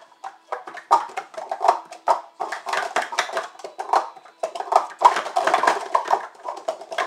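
Plastic sport-stacking cups clacking rapidly against each other and the mat as pyramids are stacked up and swept down, a fast run of clatter with a couple of brief pauses.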